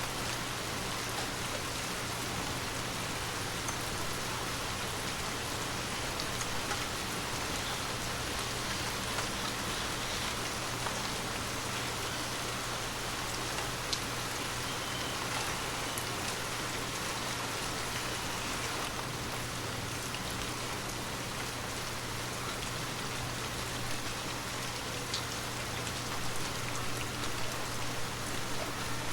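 Steady gentle rain falling, an even hiss with scattered small drop ticks.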